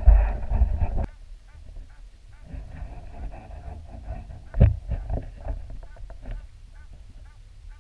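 Muffled underwater sound picked up through a waterproof action-camera housing: a loud low rumble for about the first second, then faint short chirps and scattered clicks, with one sharper click a little past the middle.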